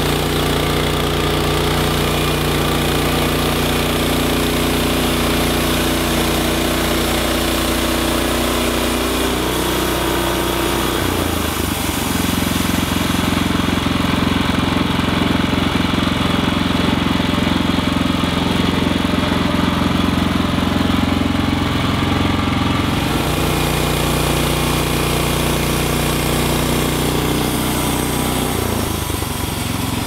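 Timbery M120 band sawmill's motor running steadily. From about eleven seconds in to about twenty-three seconds its sound changes and grows slightly louder while the band blade cuts through a squared log, then it settles back.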